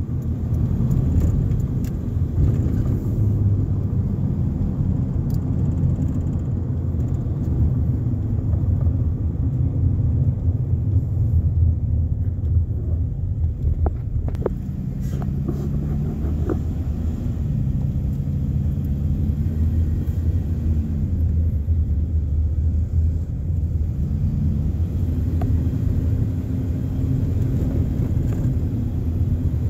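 Car engine and road noise heard from inside the cabin while driving: a steady low rumble, with the engine note rising and falling several times as the car speeds up and slows.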